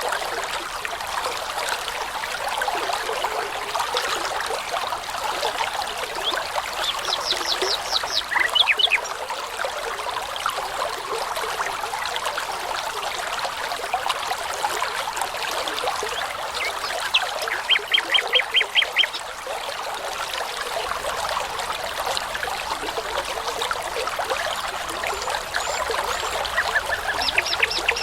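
Babbling brook running steadily, with songbirds, nightingales among them, singing short phrases of rapid repeated notes over it. The loudest phrase comes about two thirds of the way in.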